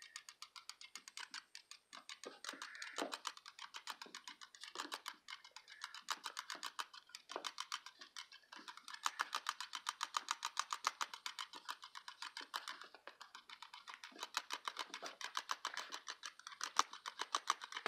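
Havanese puppy scratching and pawing at its fuzzy shamrock headband: a rapid, regular run of light scratches, several a second, coming in a few long bouts with brief pauses.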